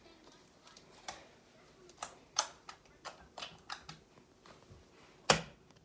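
Orange slime being poked and pressed with fingers on a stone countertop, giving an irregular run of sharp clicks and pops, the loudest one near the end.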